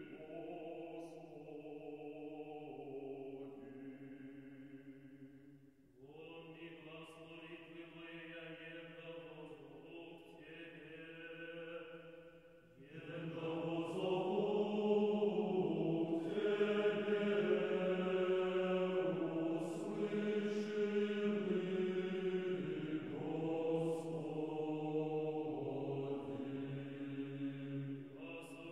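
Background music of slow sung chant, with long held notes in phrases. It grows louder about halfway through after a brief pause.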